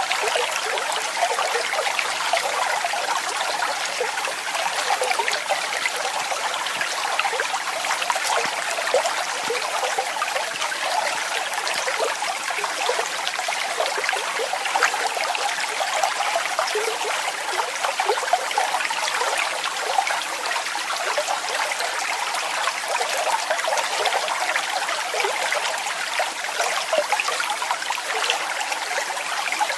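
Waterfall splashing steadily: a continuous rush of falling water, full of small splashes, with little deep rumble.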